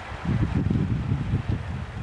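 Wind buffeting the microphone: a loud, uneven low rumble that rises and falls in gusts, over a fainter steady hiss.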